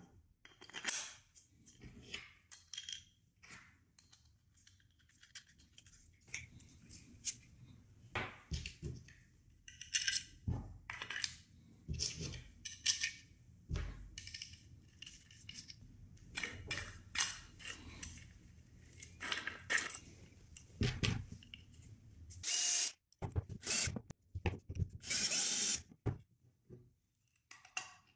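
Metal bolts, washers and nuts clicking and clinking, and wooden parts knocking, as hardware is fitted by hand through a wooden plate and pulleys; irregular separate clicks throughout, with a few longer scraping rustles near the end.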